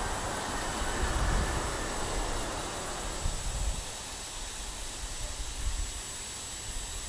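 Distant rumble of a KiwiRail diesel-hauled freight train approaching on the mainline, under a steady hiss.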